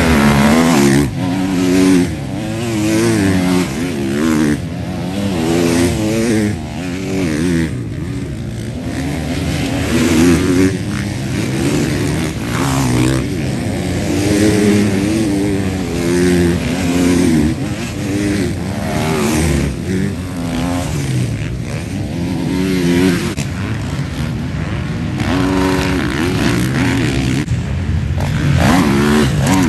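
Motocross bikes racing past, their engines revving hard and dropping back again and again as riders accelerate out of corners and over jumps, with more than one bike running at once.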